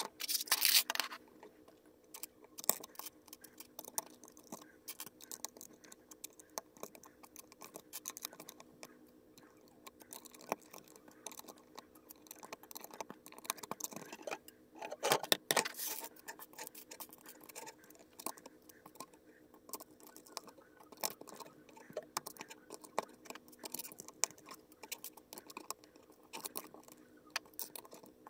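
LEGO bricks clicking and tapping as they are pressed onto a baseplate and handled on a tabletop, with two louder flurries of rattling about half a second in and around fifteen seconds in. A faint steady hum runs underneath.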